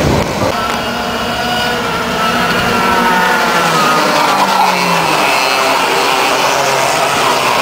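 Several go-kart engines buzzing as a group of karts accelerates through a bend, their overlapping pitches rising and falling.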